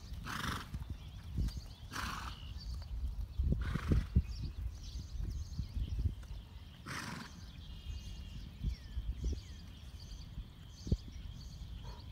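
A Kentucky Mountain Saddle Horse gaiting on soft turf: dull hoofbeats, with four short breathy snorts, the last about seven seconds in. Faint bird chirps come in over the second half.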